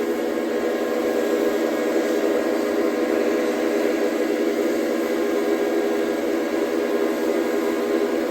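Several steam engine whistles blowing together in a steady, held chord of many overlapping tones.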